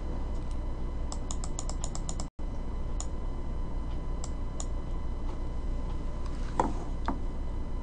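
Computer keyboard typing: a quick run of about ten keystrokes about a second in, then a few single keystrokes spaced out, over a low steady hum. Two soft knocks near the end.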